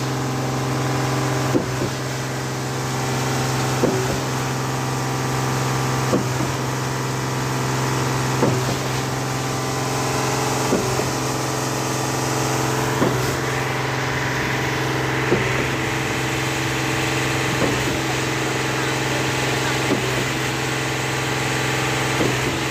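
Ashok Leyland transit mixer's diesel engine running steadily to drive the rotating drum, with a short regular knock about every two seconds. From about halfway in, a rushing noise joins as wet concrete discharges down the chute.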